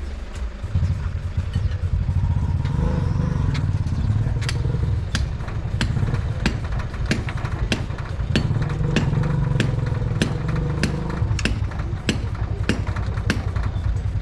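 An engine running steadily with a low rumble, joined after a few seconds by sharp knocks repeating evenly, about two a second, like regular hammer blows on demolition work.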